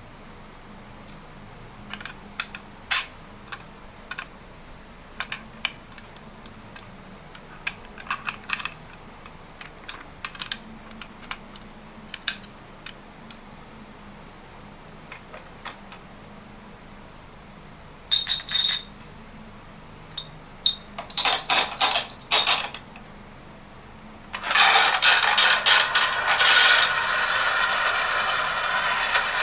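Marbles clicking and clacking on a wooden HABA marble-run slope: scattered single clicks at first, short clusters of ringing clinks past the middle, then near the end a loud, dense, continuous clatter of many marbles rolling down together.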